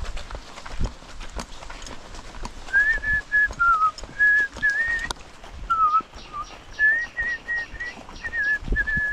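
A person whistling a simple tune in short, wavering notes that step up and down, starting about three seconds in. Footsteps thud on a wet gravel road underneath.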